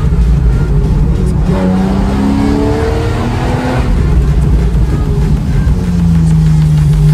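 Porsche 991 Carrera 4S's 3.8-litre flat-six heard from the open cockpit, pulling through the gears: the engine note climbs in pitch several times, breaking off at each shift, then holds a steady note near the end.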